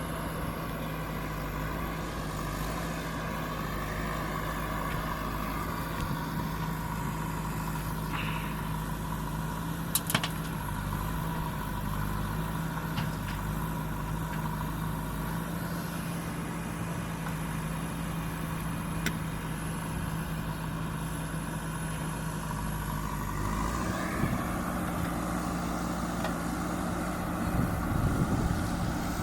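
JCB backhoe loader's diesel engine running steadily, its note changing a little over twenty seconds in. There is a single sharp knock about ten seconds in and a short rattle of knocks near the end.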